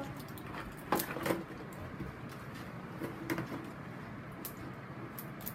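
Plastic toy packaging being handled and torn open: scattered clicks and crinkles, with the loudest cluster about a second in and a few more around three seconds.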